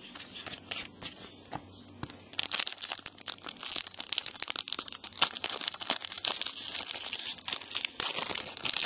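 A trading card pack wrapper being torn open and crinkled. A few light clicks and rustles come first, then a dense crinkling starts about two seconds in.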